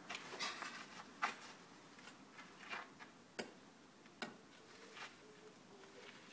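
A few sharp clicks and scuffing taps, the loudest about a second in, from a boy's baseball swing practice on gravelly ground: his shoes and the bat scraping and tapping the dirt.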